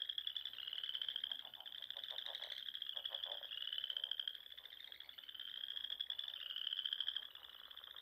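Frogs calling: a high pulsed trill that repeats in runs of about a second, with lower pulsed croaks mixed in during the first few seconds.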